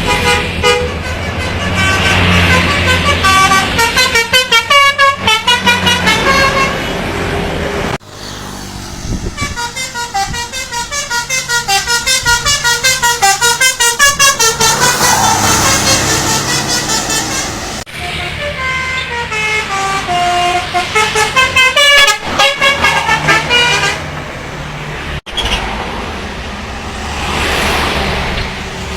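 Indonesian bus 'telolet' horns: multi-tone musical air horns playing quick melodies of rapid, stuttering beeps that step up and down in pitch, over a bus engine running. The horn tune changes abruptly about eight, eighteen and twenty-five seconds in, as one bus follows another.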